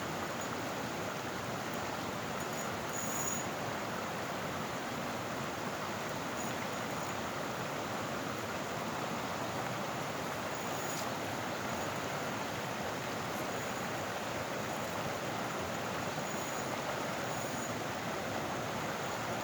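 Steady rushing of flowing river water, with a few faint ticks high above it.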